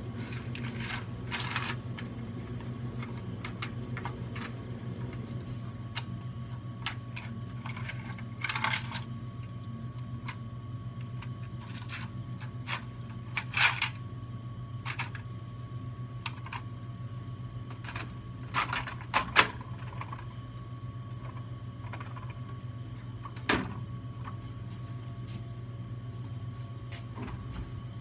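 Coins clinking and jingling now and then as they are handled, over a steady low hum.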